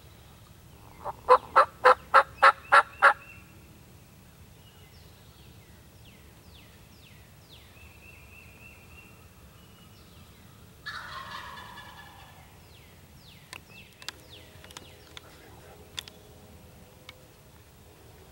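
A turkey call sounding a run of about eight loud yelps, about four a second. About eleven seconds in, a wild turkey gobbler answers with a single fainter gobble, with songbirds chirping in between.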